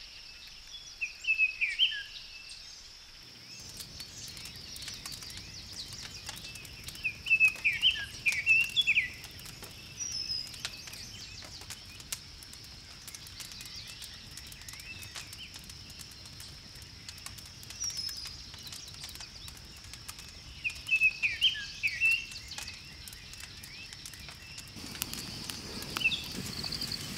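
Birds chirping in short quick phrases three times, over a steady high-pitched insect drone. Faint crackling of a small twig campfire runs underneath.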